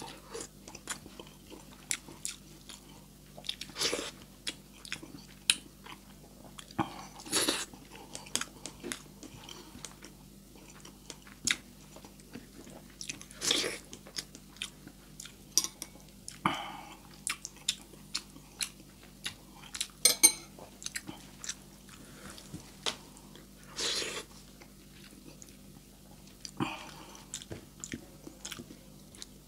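Close-miked chewing of a mouthful of rice and sardines in tomato sauce, eaten by hand: irregular wet mouth smacks and clicks, over a faint steady low hum.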